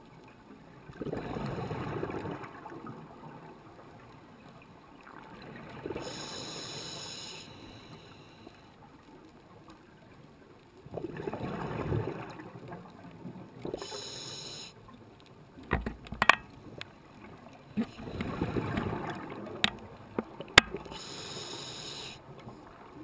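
A scuba diver breathing underwater, heard through the camera housing: the hiss of the regulator on each inhale alternating with a rush of exhaled bubbles, about three breaths in all. A few sharp knocks come in the second half.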